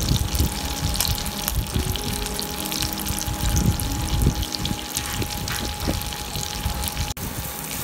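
Dried salted fish (tuyo) frying in hot oil in a wok, with steady sizzling and crackling.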